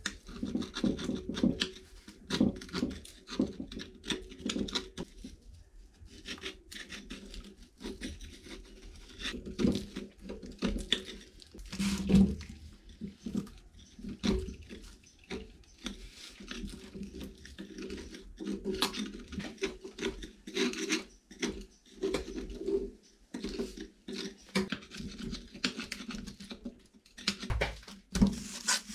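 Irregular knocks, taps and scraping from hands-on work on an old 5-ton hydraulic jack, with many short clicks and a few louder knocks.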